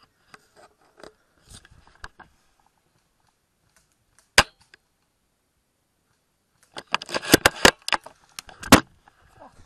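Airsoft gunfire: a single sharp shot from a scoped Tokyo Marui VSR-10 spring-powered bolt-action airsoft rifle about four seconds in. Near the end comes a quick irregular flurry of clicks and cracks lasting about two seconds, closing with another loud crack.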